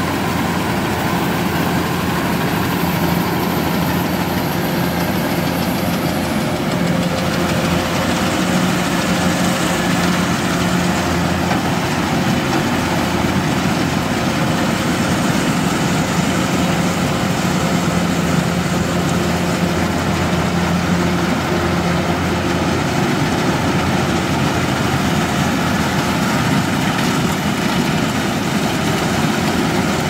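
Kubota DC-105X crawler combine harvester's diesel engine and machinery running steadily, a constant engine hum with no change in speed.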